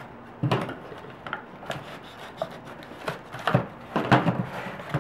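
Cardboard packaging insert scraping and rubbing as a plastic Nerf N-Strike Elite Spectre Rev-5 blaster is pulled and worked loose from it by hand, in a string of irregular knocks and scrapes.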